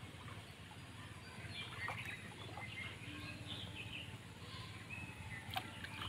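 Birds chirping and calling in short scattered bursts over a faint steady low rumble, with one sharp click near the end.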